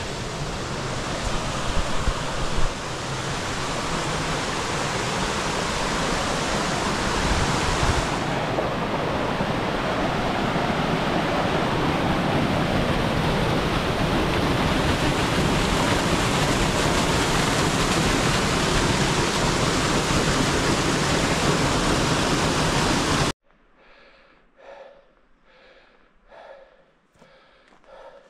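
Steady loud rushing noise, even across low and high pitches, growing slightly louder over the first several seconds. It cuts off abruptly near the end to a hiker's heavy breathing, about one breath a second.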